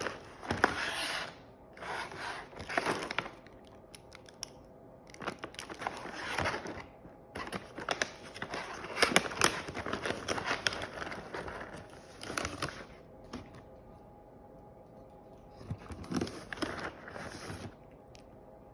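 Plastic packaging crinkling and tearing as it is handled and opened, in bursts of one to five seconds with short pauses between.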